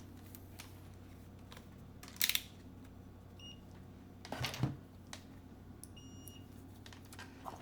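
A multimeter's continuity tester beeping as probes touch the cable's connector pins: a short high beep about three and a half seconds in and a longer one about six seconds in, each meaning the probed pins are connected. Two louder brief rustling bursts of handling noise come about two seconds and four and a half seconds in.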